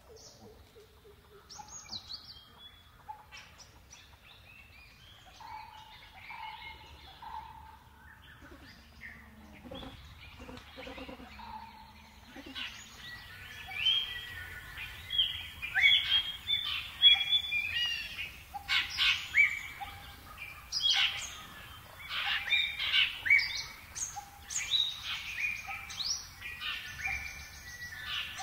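Small birds chirping and calling, quick whistled notes that glide up and down; the calls are sparse at first and become louder and busier about halfway through.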